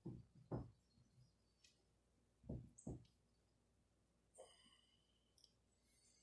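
Near silence: room tone with a few faint, soft knocks in the first three seconds and one faint click with a brief high ring about four seconds in.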